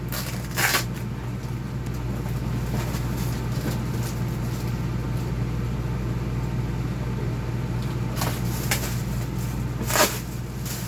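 Cardboard and plastic packaging being handled and pried open: rustling and crackling with a few sharp snaps, one about a second in and the loudest near the end, over a steady low hum.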